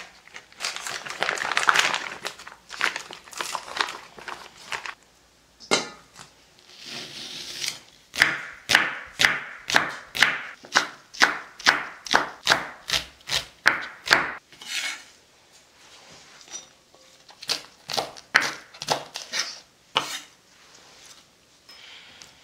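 A plastic food pouch crinkling as it is cut open. Then a kitchen knife chopping vegetables on a wooden cutting board, about two chops a second, thinning to scattered cuts in the last part.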